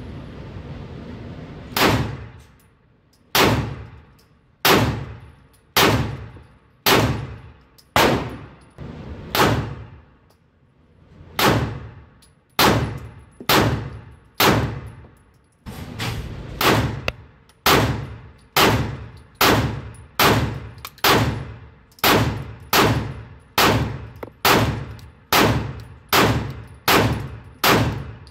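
Palmetto State Armory handgun fired repeatedly at an indoor range: single shots a little over a second apart, then a quicker string from about halfway through. Each report rings on briefly off the range walls.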